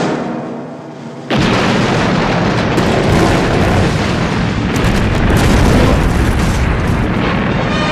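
A sustained orchestral chord fades out. About a second and a half in, a large explosion sound effect hits suddenly: a loud blast followed by several seconds of continuous deep rumble from the burning blast.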